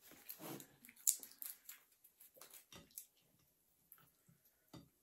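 Light clicks and rustles of plastic takeout containers, utensils and a sauce packet being handled as food is served onto a plate. There is one sharper click about a second in.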